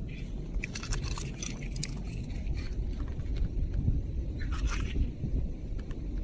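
Scattered clicks and scrapes of coral rubble and shell being handled as a gloved hand picks up a scallop shell, over a steady low rumble of wind on the microphone.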